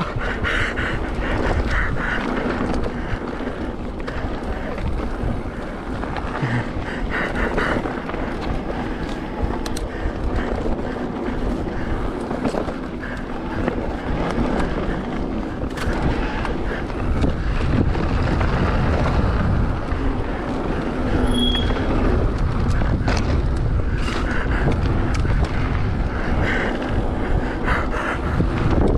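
Mountain bike ridden along a dirt trail: wind rushing over the microphone and tyres rolling on loose ground, with frequent knocks and rattles from the bike over bumps.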